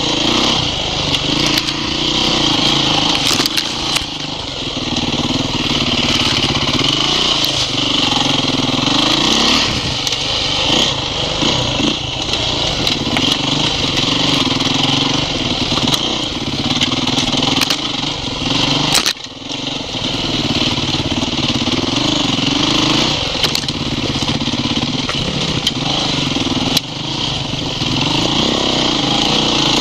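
Off-road motorcycle engine running under load, revs rising and falling continually as it rides a rough trail, with scattered sharp knocks and a brief drop in engine sound about two-thirds of the way through.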